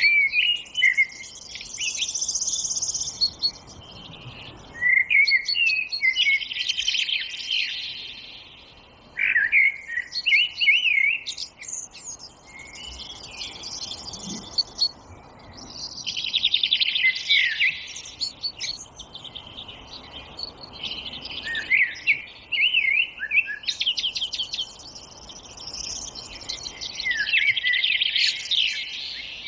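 Several songbirds singing, with overlapping chirps and rapid trills that come in clusters every few seconds, over a faint steady hiss.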